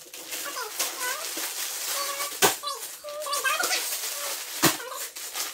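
Plastic bags of Lego pieces crinkling and rattling as they are handled and opened, under children's voices. Two sharp knocks stand out, about two and a half and four and a half seconds in.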